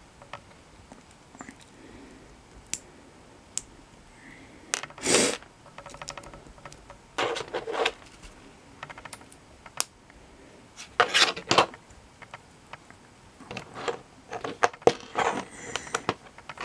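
LEGO bricks being handled and snapped together, with scattered sharp clicks and a few short, louder rattles of pieces.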